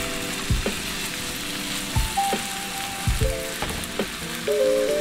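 Two thin New York strip steaks searing in olive oil in a hot nonstick frying pan, with a steady sizzle. Background music with a simple melody plays over it.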